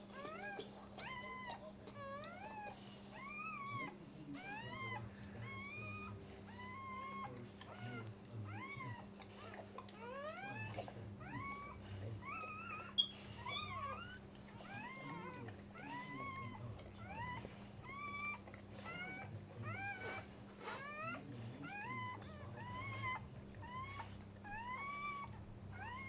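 Newborn Dogue de Bordeaux puppy crying in short, high, mewing squeaks, about one a second, each rising and falling in pitch.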